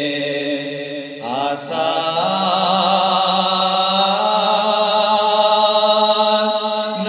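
A man's solo voice reciting an Urdu naat, drawing out long held notes with wavering ornaments. A little over a second in he breaks off and starts a new phrase on a rising glide.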